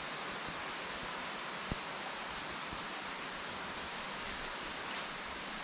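Steady rushing of water from a rainforest stream or waterfall, an even hiss with no change.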